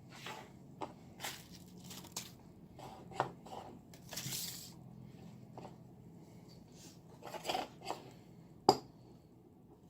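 Light handling of a lightsaber hilt and small tools: a string of short rustles and clicks. One sharp click near the end fits wire cutters snipping through the speaker pack's red wire.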